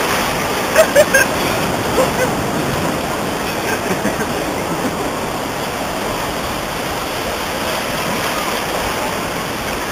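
Steady rushing of sea surf and splashing water in the shallows, with a few brief louder spikes about a second in.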